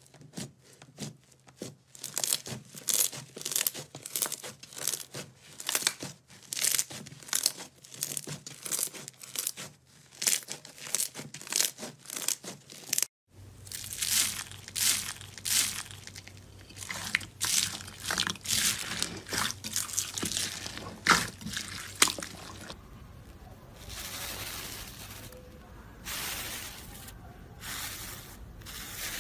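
Hands squishing and pressing slime, with quick sticky pops and crackles. About 13 seconds in it changes to the crackling crunch of foam beads pressed into floam slime. Near the end it turns to a softer, hissing squish of foamy green slime.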